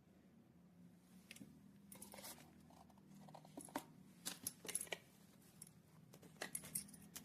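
Faint, scattered light clicks and metallic clinks of a mechanical wristwatch being handled, the loudest cluster about four to five seconds in, over a low steady hum.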